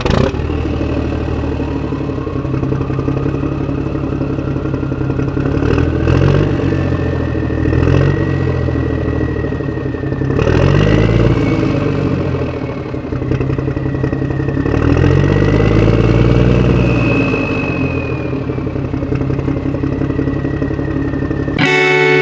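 Motorcycle engine running on the move, its revs rising and falling several times, with a thin whine that rises and falls along with it.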